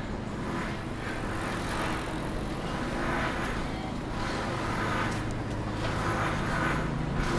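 Street ambience with a motor vehicle's engine running: a steady low hum that grows a little stronger near the end.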